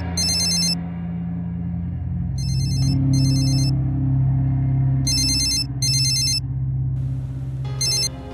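Basic mobile phone ringing with an old-style electronic ringtone: high warbling rings in pairs, one pair about every two and a half seconds, over a low steady music drone.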